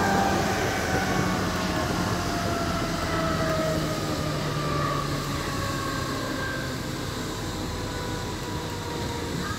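DT3-E U-Bahn train running on the track, its electric drive whining in several tones that fall steadily in pitch as the train slows, over the rumble of wheels on rail.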